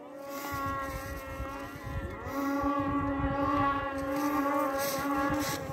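Snowmobile engines running at high revs in a race, a steady whine that rises in pitch about two seconds in and then holds, louder.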